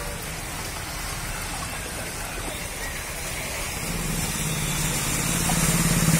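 Heavy rain and flowing floodwater make a steady hiss. From about four seconds in, a motorcycle engine grows louder as the bike rides through the water close by.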